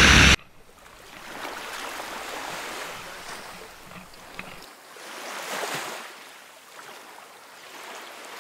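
Loud engine noise cuts off abruptly about half a second in. It gives way to a soft rushing of small waves that swells and fades.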